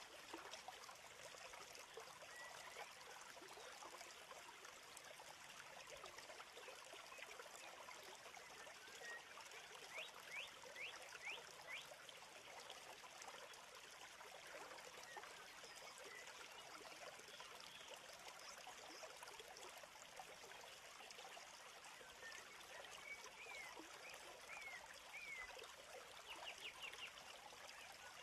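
Faint, steady trickling-water rush, like a small stream, with a few short high chirps about ten seconds in and again near the end.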